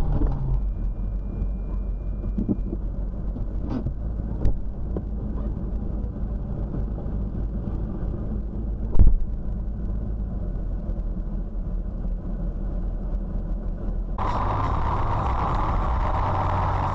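Low, steady engine and cabin rumble heard through a dash camera, with a couple of faint knocks and one sharp thump about nine seconds in. About fourteen seconds in, the sound switches abruptly to a louder, brighter steady road and traffic noise.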